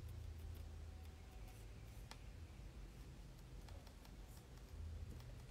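Near silence: faint room tone with a steady low hum and a few scattered faint clicks.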